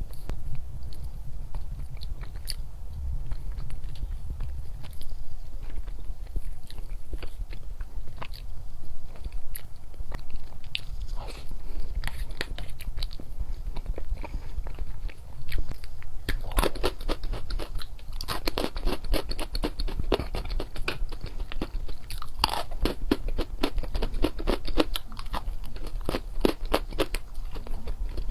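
Close-up chewing and crunching of chocolates: crisp little clicks and crackles, sparse at first and becoming a dense, louder run a little past halfway.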